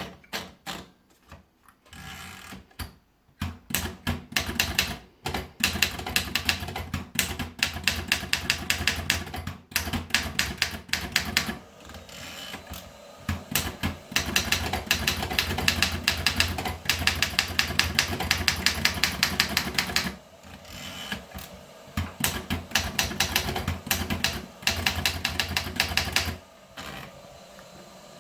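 Remington Monarch typewriter being typed on: rapid runs of key strikes clacking against the platen, in bursts with short pauses between them. The strokes are few and scattered at first, then dense and fast, and they stop shortly before the end.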